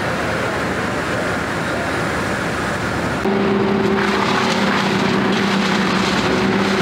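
Steady outdoor noise. About three seconds in it gives way to the louder, steady engine hum of a towable wood chipper. A second later a harsher grinding noise joins the hum as branches are fed into the chipper.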